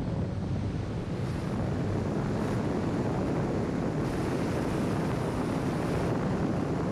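Steady rush of road and wind noise from a car driving along a mountain road, with wind buffeting the microphone and a low engine hum underneath.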